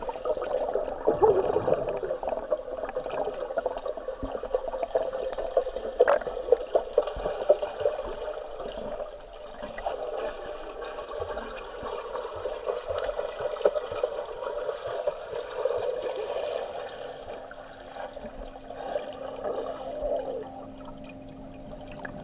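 Muffled underwater swishing and bubbling of swimmers moving through pool water, recorded underwater, with occasional sharp knocks.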